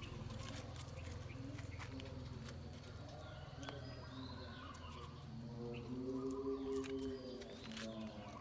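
Puppies growling as they play-fight over a rubber flip-flop, with light clicks of teeth and claws on the tiles. The growl is low and rumbling at first and turns higher and more drawn out about five and a half seconds in.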